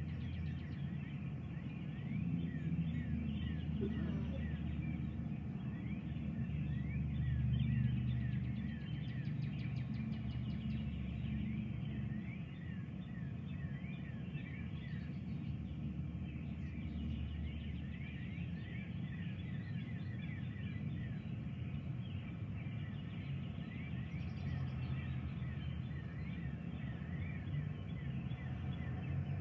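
Birds chirping, many short quick falling notes throughout, over a low rumble of distant thunder that swells about two seconds in and is loudest around seven to eight seconds in.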